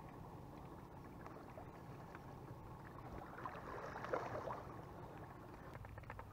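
Faint lapping of small waves against shore rocks, with wind rumbling on the microphone; a brief patch of light water splashing about three to four seconds in.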